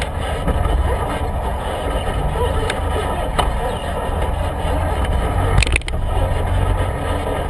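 Motorcycle riding at a steady pace: the engine rumbles and wind rushes over the microphone, with one brief sharp knock about five and a half seconds in.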